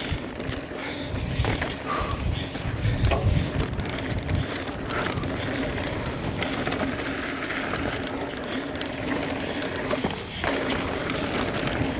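Mountain bike ridden hard along a dirt trail while the rider pedals: tyres rolling over dirt and rock, with a constant clatter of chain and frame. Low rumbles of wind buffet the microphone at times.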